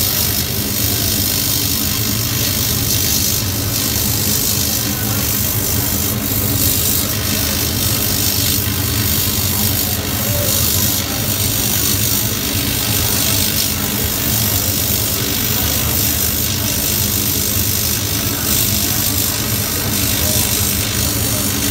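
Laser cutting machine running as its head cuts shapes into a paper sheet: a steady hum with a hiss over it.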